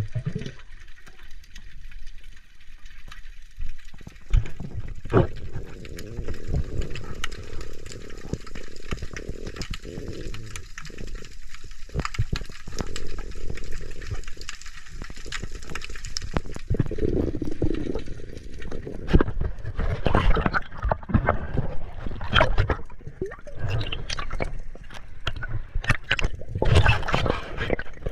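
Underwater sound of moving water: gurgling and sloshing over a low rumble, with many scattered clicks and knocks that grow busier in the second half.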